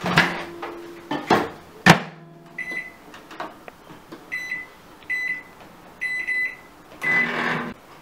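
Emerson countertop microwave: the door is opened and then shut with a sharp bang about two seconds in, followed by a series of short, high keypad beeps, roughly one a second, as the cooking time is entered.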